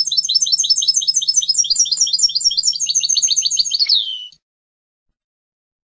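European goldfinch singing a fast run of repeated high notes, each sweeping downward, about six or seven a second. The song ends a little under four seconds in with a longer falling slurred note. A faint low hum runs under the song.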